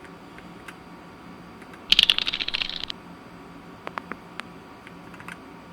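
Keys on a mechanical keyboard clacking: a fast run of presses about a second long, then a few single key presses.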